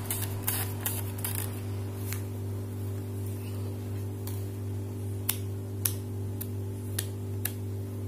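Sheet of coloured paper crackling as it is rolled tightly around a thin stick, with short sharp crinkles every second or so, over a steady low hum.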